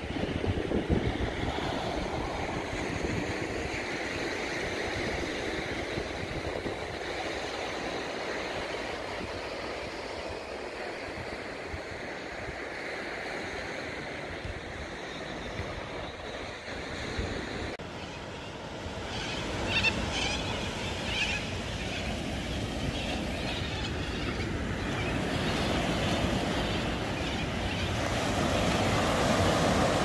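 Small waves breaking and washing up a sandy beach, under a steady low rumble of wind on the microphone. The sound changes abruptly a little past halfway, and the surf grows louder near the end.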